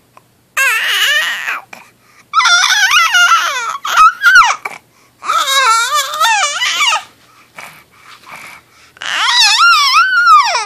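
Infant babbling and cooing in four stretches of high-pitched vocalizing, the pitch sliding up and down, with short pauses between.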